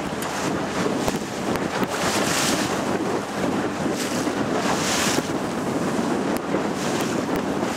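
Small motor boat under way: the motor running under the rush of water along the hull and wind buffeting the microphone, with swells of hiss about two and a half and five seconds in.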